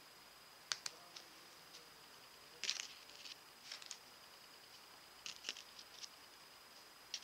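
Jewelry pliers clicking and tapping against a small pendant piece worked by hand: light, scattered clicks, one to a few at a time, every second or so.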